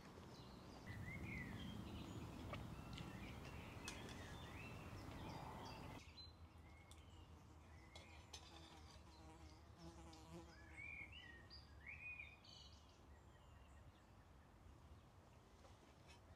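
Faint woodland birdsong: scattered short chirps and whistled phrases from several birds. An insect buzzes faintly partway through.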